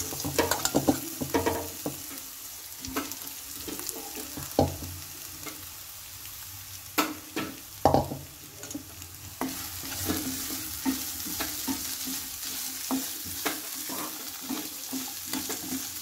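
Diced boiled tubers frying in oil in a nonstick kadai, stirred with a wooden spatula: a steady sizzle with scrapes and sharp knocks of the spatula against the pan, the sizzle growing louder about halfway through.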